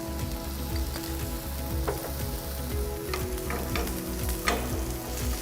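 Green moong uttapam frying in oil on a non-stick pan: a steady sizzle with a few sharp crackles, the loudest about four and a half seconds in.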